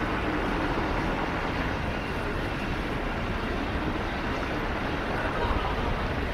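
Road traffic on a city street: cars passing, a steady wash of engine and tyre noise.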